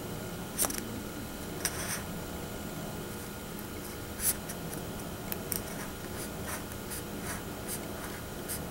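Craft knife blade cutting along a line in a styrofoam ball: short, irregular scratchy squeaks and scrapes, over a steady faint hum.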